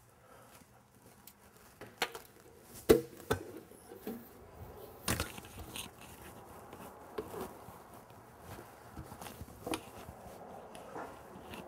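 Scattered knocks, clunks and clicks of handling work in a truck shop, irregular and unevenly loud, the sharpest about three seconds in and another about five seconds in.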